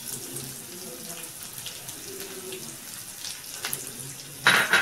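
Chillies and curry leaves sizzling in hot sesame oil in a clay pot as they are tempered with mustard seeds: a steady hiss with small crackles, while a wooden spatula stirs. There is a brief louder burst near the end.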